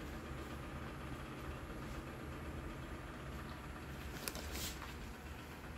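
Steady low background hum, with a couple of short crackles about four seconds in as plastic packets of earrings and lashes are handled.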